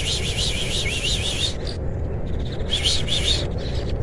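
A small bird singing a fast run of short, high chirps, breaking off about halfway through and starting again for a moment later on, over a steady low rumble.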